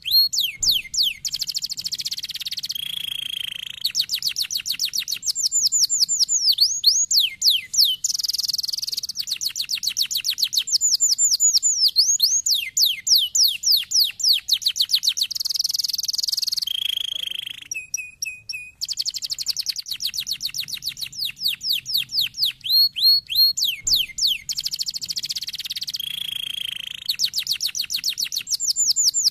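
Domestic canary singing a long, continuous song: rapid series of repeated sweeping notes alternating with buzzy rolls, with a brief pause a little past halfway.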